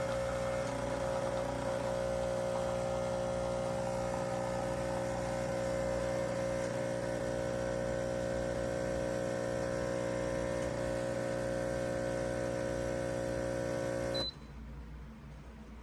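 Espresso machine's pump humming steadily while it runs. It cuts off suddenly near the end with a short high beep.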